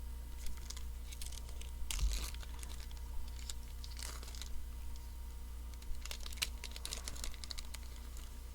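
Baseball card pack being handled: the wrapper crinkling and tearing, and the cards clicking and sliding against each other as they are pulled out and sorted, in irregular bursts over a steady low hum.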